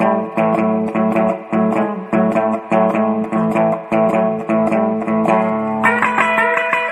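Background music: a guitar-led tune with bass, plucked notes in a steady rhythm. A higher guitar line comes in near the end.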